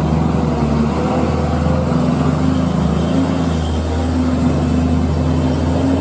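Diesel truck engine running with a low, steady drone.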